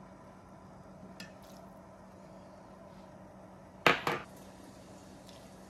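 Faint low hum, then about four seconds in, two quick clinks of kitchenware, a quarter second apart, as the carafe and spoon are taken away from the stainless steel mixing bowl.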